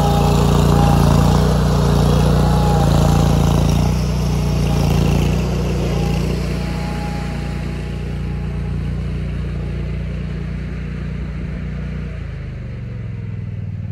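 Vermeer SC30TX tracked stump grinder's gasoline engine running steadily at high speed, slowly growing fainter, its pitch dropping as it slows down near the end.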